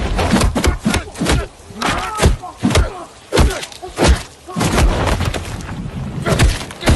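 A fast series of heavy punches and body blows, a dozen or so hard thuds and slams, with short grunts and shouts among them.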